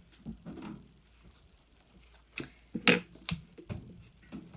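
A few light knocks and clicks, the loudest about three seconds in, as the Microfleur microwave flower press is handled.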